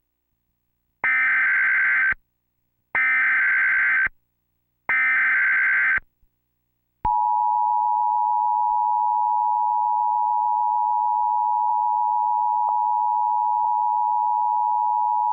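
Emergency Alert System SAME header: three warbling data-tone bursts of about a second each, spaced two seconds apart. About seven seconds in comes a click, then a single steady attention tone near 1 kHz. Together they signal the start of an emergency alert, here a tornado warning.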